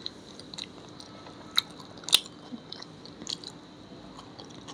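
A person chewing and biting food close to the microphone, with a handful of short, crunchy clicks, the loudest about two seconds in.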